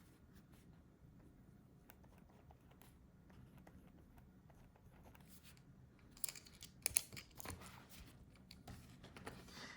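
Faint scratching of a 3D-printed pen's Pilot G2 ballpoint refill writing on paper, with a few louder sharp clicks and handling knocks from about six seconds in.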